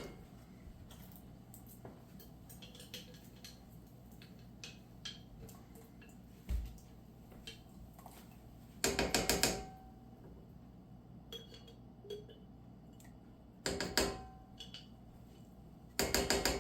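A kitchen utensil scraping against cookware while sauce is scraped out and stirred into pasta: three short bursts of rapid scraping, with light clicks and taps between them and one dull thud.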